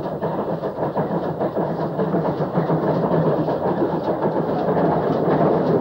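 Great Western pannier tank steam locomotive running in with its train, its exhaust and running gear growing steadily louder as it approaches.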